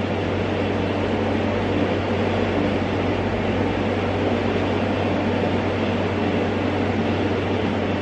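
A steady, even rumbling noise with a constant low hum underneath, unchanging throughout.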